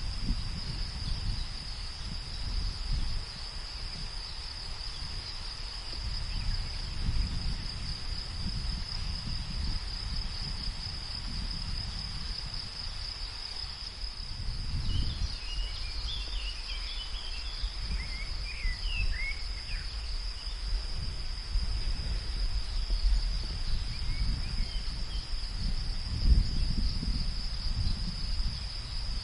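Field ambience: a steady high-pitched insect chorus over a low, uneven rumble of wind. About halfway through, a bird gives a quick run of short chirps.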